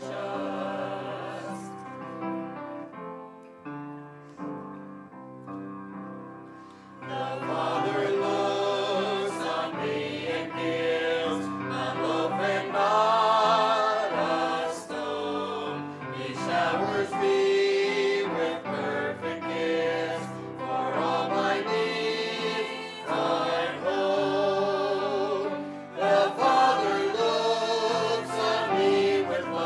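Small church choir singing, led by a conductor; the singing is softer for a few seconds near the start, then swells fuller and louder from about seven seconds in.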